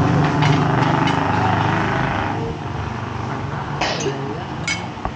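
A small vehicle engine running steadily and fading out about two seconds in, then two light clinks of cutlery on plates near the end.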